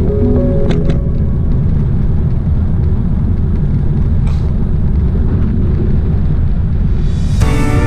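Steady, heavy low wind noise buffeting the microphone of a camera on a moving bicycle. Background music stops about a second in and comes back in near the end.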